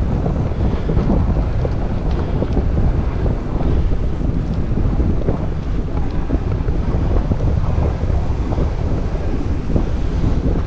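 Wind buffeting the microphone: a loud, steady low rumble that flickers unevenly.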